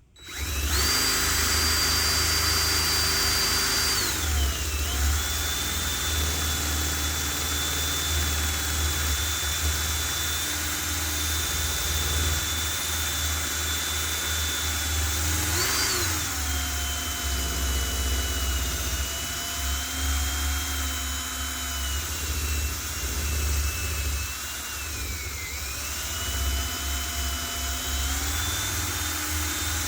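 Electric drill spinning an old door knob held in its chuck while a Scotch-Brite pad is pressed against it, for polishing. The motor whine starts at once and runs throughout. Its pitch sags a few times as the pad loads it, then climbs back.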